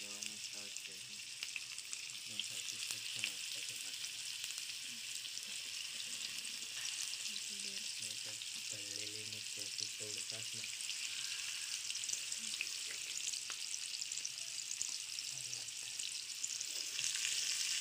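Spice-coated surmai (kingfish) steaks shallow-frying in hot oil in a pan: a steady sizzle full of small crackles and pops.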